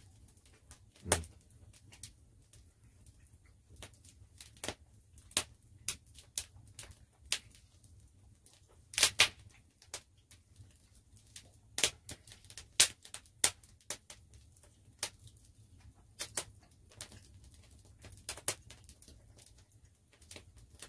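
Open wood fire crackling: irregular sharp pops and snaps, the loudest about a second in and around nine seconds in.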